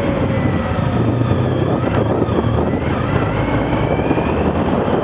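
Motorcycle engine running under acceleration, heard from the bike itself, its note rising as it speeds up over a steady low rumble.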